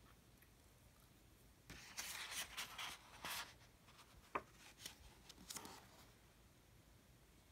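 Page of a picture book being turned: a soft paper rustle lasting about two seconds, then a light tick and a few fainter rustles.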